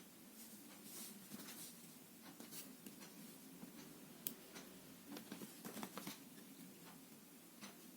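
Faint handling sounds of a plastic deodorant stick and its packaging: scattered light clicks and soft scrapes, with a sharper click about halfway through and a small cluster a little after.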